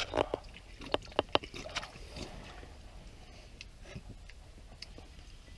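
Water sloshing in a plastic-lined pit as a small cup is dipped in, with a few sharp clicks in the first two seconds.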